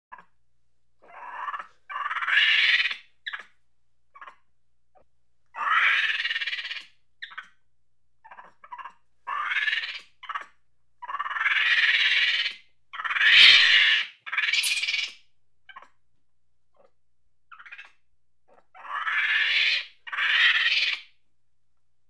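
Monkey's angry chatter: harsh calls about a second long, mostly in pairs, with short chirps between them and brief silent pauses.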